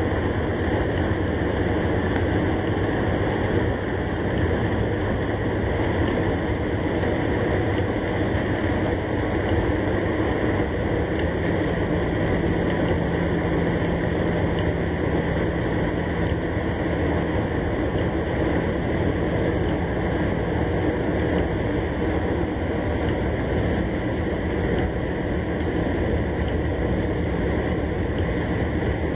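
Steady rush of rain and road noise heard from inside a car in a heavy thunderstorm, with no thunderclap standing out.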